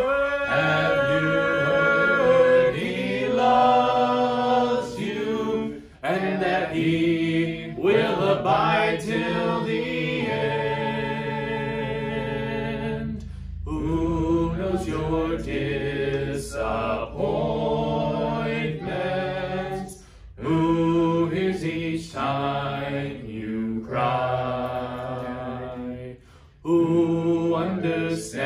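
Unaccompanied voices singing a hymn a cappella, in phrases of a few seconds with short breaks between them.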